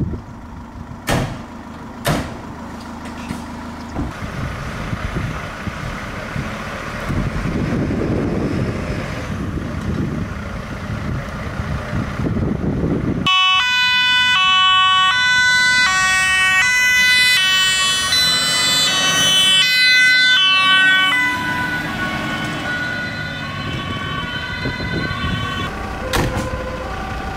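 Two sharp clicks, then a fire engine's diesel engine running and revving with rising level. About halfway a two-tone siren starts, stepping back and forth between a high and a low note; it is loudest for several seconds, then fades as the truck drives off.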